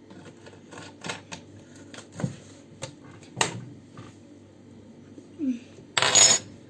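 Kitchen utensils being handled: scattered light clinks and knocks of a spoon, bottle and jar while a teaspoon of vinegar is measured out, with a short loud rush of noise about six seconds in.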